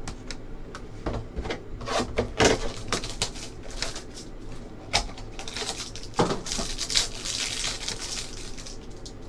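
Plastic wrapper of a trading card pack crinkling and tearing as it is pulled open by hand, with scattered light clicks and taps of handling; the crinkling is densest in the last few seconds.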